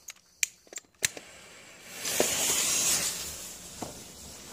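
A lit firework fuse burning on leaf litter: a spitting hiss rises about two seconds in, then settles to a quieter sizzle. A few sharp clicks come in the first second.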